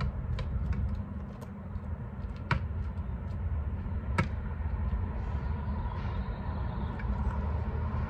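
A basketball bouncing a few times on asphalt, separate sharp thuds spaced a second or more apart, over a steady low rumble.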